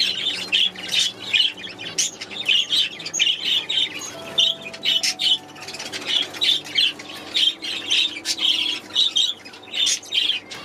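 Budgerigars chattering and squawking, a constant run of short calls, over soft background music.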